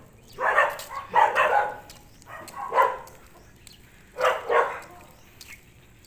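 A dog barking: four short barks spread over about five seconds, then a pause.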